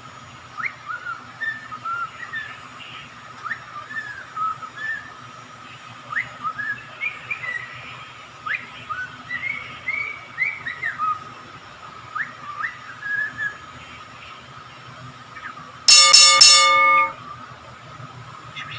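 A pet songbird whistling and chirping in short rising and falling notes, with a steady high tone underneath. About 16 s in, a loud blare with several tones at once lasts about a second.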